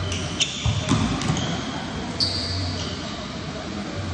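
Volleyball rally in a large hall: a few sharp smacks of hands striking the ball and feet on the court in the first second and a half, then a short high squeak a little after two seconds, over a steady low hum.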